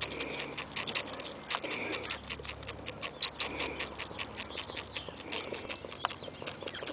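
Two Nigerian Dwarf goat kids sucking hard on feeding bottles: a fast, uneven run of wet clicks and smacks from the nipples. A faint short high note repeats about every two seconds behind it.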